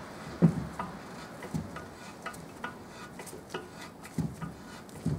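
Hand tap in a T-handle tap wrench cutting an M5 thread into an aluminium oil sump: light metallic clicks about three times a second as the wrench is turned, with a few soft knocks near the start and near the end.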